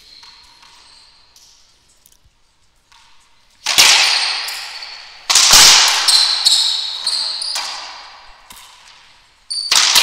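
Racquetball rally: the ball cracks off racquets and the court walls, with three loud hits about three and a half, five and nine and a half seconds in and lighter knocks between, each ringing out in the enclosed court.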